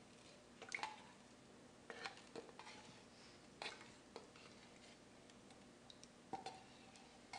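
Faint scrapes and light clinks of a spatula working condensed cream of mushroom soup out of a tin can into a slow cooker crock, a handful of short strokes spread out with quiet gaps between them.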